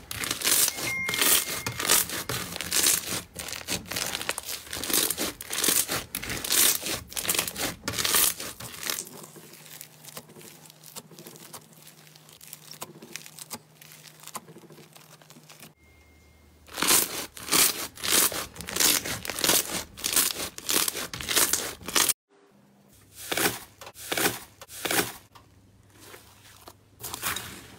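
Foam-bead (floam) slime being squeezed, pressed and stretched by hand, giving dense wet crackling and popping. The crackling thins out for several seconds about a third of the way in, then comes back loud.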